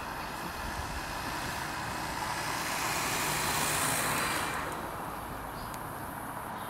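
Road traffic: a vehicle passing close by, its tyre and engine noise swelling to a peak about four seconds in and then fading, over a steady background of traffic noise.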